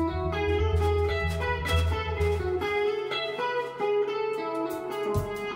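Band playing: an electric guitar picks a run of single notes over a low held bass guitar note, which drops out about halfway through. A drum thump comes in near the end.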